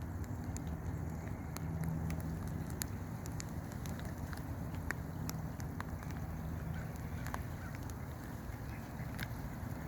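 Steady rain, with scattered drops ticking sharply close to the microphone, over a low steady rumble.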